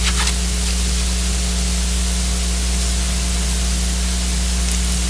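Steady hiss with a low electrical hum underneath, unchanging: the background noise of the microphone and sound system, with no one speaking.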